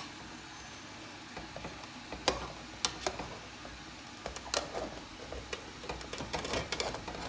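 Metal spoon scraping and knocking against the inside of a pot as baked chicken tahchin is dug out, with scrapes from its crisp bottom crust (tahdig). Irregular clicks and scrapes, a few at first and thicker near the end.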